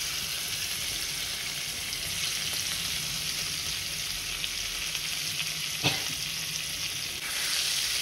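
Chopped green chillies sizzling steadily in foaming butter and oil in a hot pan, with one light knock about six seconds in. The sizzling grows louder near the end as a spatula starts stirring.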